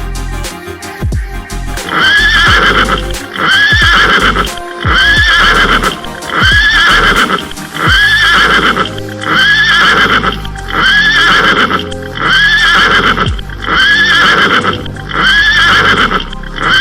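Music with a short horse whinny repeated as an even loop, about every second and a half, from about two seconds in, over a low, thudding beat.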